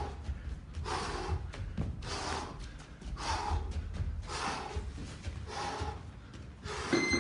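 A man breathing hard while shadowboxing, blowing out a sharp breath about once a second with his punches, over dull thuds of his feet on the ring mat. A steady high beep starts near the end.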